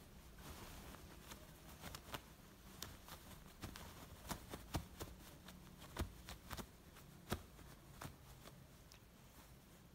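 Faint rustling and a scattering of sharp clicks as a cat and kitten paw, knead and groom each other on a fabric blanket, thickest in the middle seconds, over a low steady purr.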